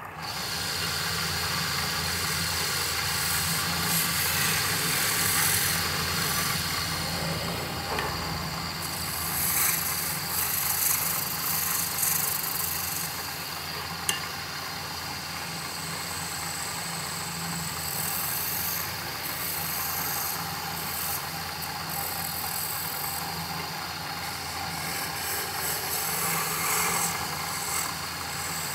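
Wood lathe running steadily with a low motor hum as the goblet blank spins. A higher hiss swells and fades several times, and near the end a turning tool cuts the spinning wood. There is one sharp click about halfway.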